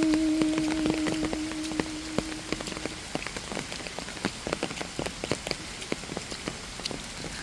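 Rain falling, with many separate drops heard as irregular sharp ticks over a steady hiss. A long held musical note from the hymn fades out about two to three seconds in, leaving only the rain.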